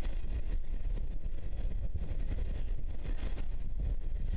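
Steady low rumble of a container freight train's wagons rolling across a steel trestle viaduct, mixed with wind buffeting the microphone.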